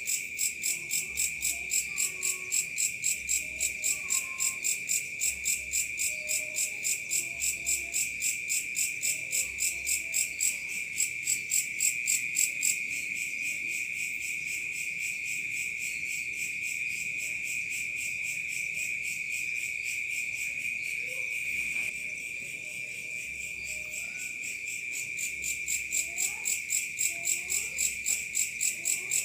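A night chorus of crickets and other insects: a steady high trill with a rapid, even pulsing chirp over it. The pulsing drops away a little before halfway through and returns near the end.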